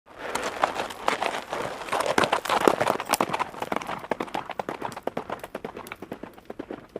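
Hooves of galloping horses drumming on hard ground, a rapid run of sharp hoofbeats that starts abruptly, is loudest two to three seconds in and then grows fainter.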